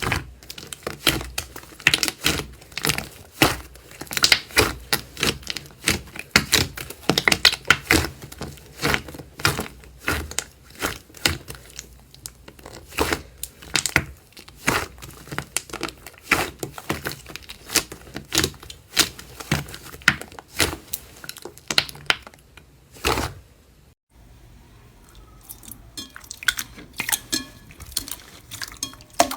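Slime being squeezed and stretched by hand, giving a dense run of sticky clicks, pops and crackles. About 24 seconds in there is a brief drop-out, then softer, sparser crackling.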